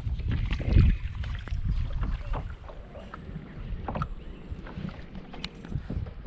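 Kayak paddling: the paddle blades dip and splash in the water, giving short scattered splashes and drips, over a low wind rumble on the microphone that is heaviest in the first second.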